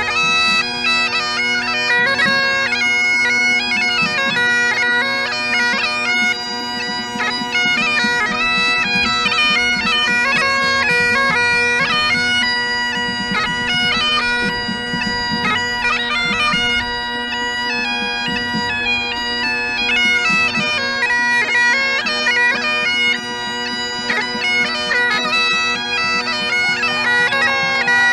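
Bagpipes playing a slow tune: a steady drone held underneath while the chanter's melody steps between notes above it.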